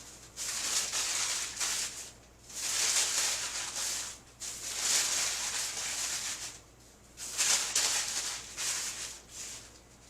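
Four bursts of dry rustling, each about two seconds long, with short gaps between.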